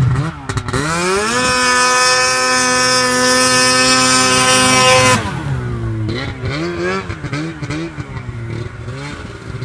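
Snowmobile engine revving up to a steady high pitch and holding it for several seconds, then dropping off about five seconds in and rising and falling in short revs.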